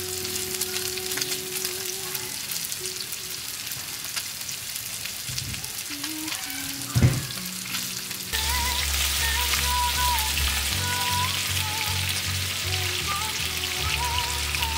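Soft background music over a steady crackling hiss, with a short sudden sound that falls in pitch about seven seconds in. About eight seconds in, the music grows fuller, with a deep bass line and a higher melody.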